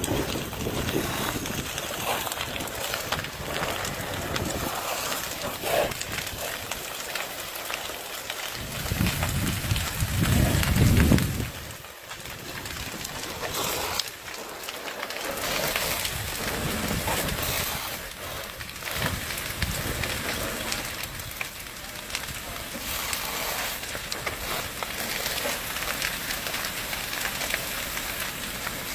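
A fully involved structure fire burning, a steady hiss dense with crackling. A loud low rumble swells about nine seconds in and cuts off suddenly near the twelve-second mark.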